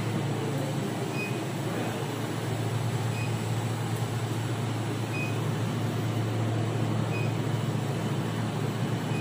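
Steady low engine drone of heavy machinery under a haze of noise, with a faint short high beep about every two seconds.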